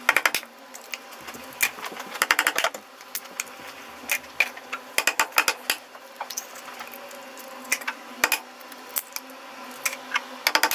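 Eggs being cracked into a plastic mixing bowl: clusters of sharp shell cracks and clicks, coming every second or two.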